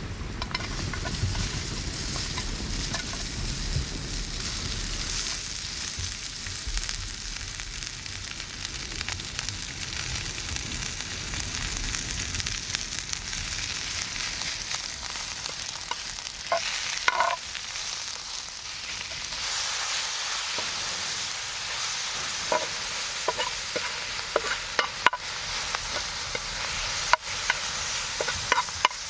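Food sizzling steadily as it fries in a pan, the sizzle growing brighter about two-thirds of the way through, with a few sharp clicks near the end.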